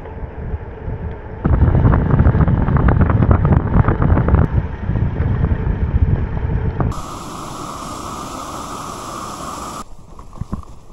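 Wind buffeting the microphone, a loud low rumble for most of the first half. It switches abruptly to a steady hiss that lasts about three seconds.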